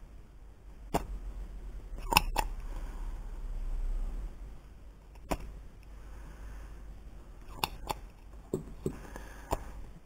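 Scattered sharp little clicks and taps of a soldering iron and small tools against a plastic remote-control circuit board during desoldering, about ten in all, over a low hum that stops a little after four seconds in.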